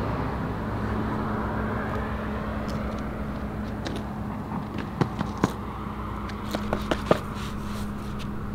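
Street ambience of light traffic, a steady wash with a faint low hum, and a few short sharp clicks about five to seven seconds in.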